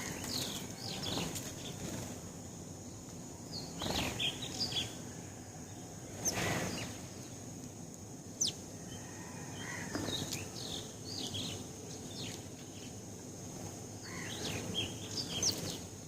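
House sparrows chirping in short, scattered clusters of high cheeps, with a few brief rustles a few seconds in.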